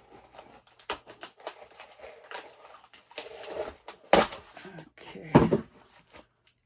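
Heavily taped cardboard packaging being worked open by hand: scraping, rustling and tearing of cardboard and packing tape. Two sharp knocks about four and five seconds in.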